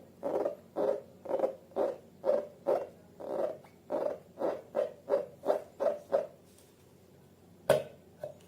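Slime being squeezed and kneaded by hand: a steady run of short squishy pulses, a little over two a second, which stops about two seconds before the end; then one sharp click near the end.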